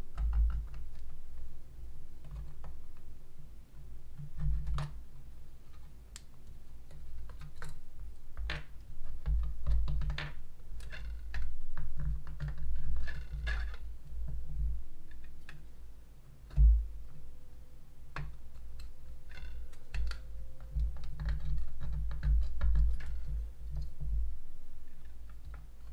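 Handling of a plastic miniature kit on a wooden desk: scattered light clicks and taps of plastic parts, dull bumps, and two short stretches of scratching as a small metal tool marks a line on the plastic base.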